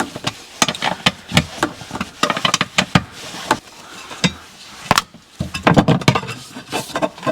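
Irregular clicks, clinks and light knocks of hands and tools working at a hose fitting under a car, with a denser run of clicks about six seconds in.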